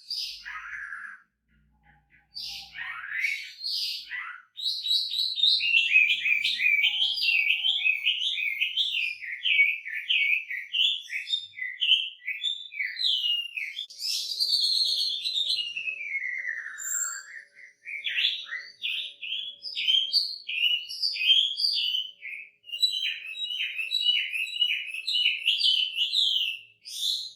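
Chinese hwamei singing a long, varied song: a few separate sweeping notes, then about four seconds in a continuous run of rapid, changing phrases packed with mimicked snippets, with a long falling whistle about halfway through.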